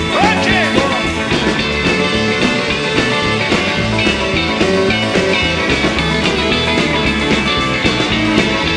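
Rock music with electric guitar over a steady beat, playing loudly and continuously.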